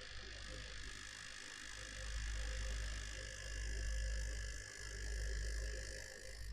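Graphics card fans of an MSI GeForce RTX 3070 Gaming Z Trio running at full speed under cooler boost, a steady whirr with a rattling noise whose cause the owner cannot find; he suspects a faulty part. The low rumble swells a few times.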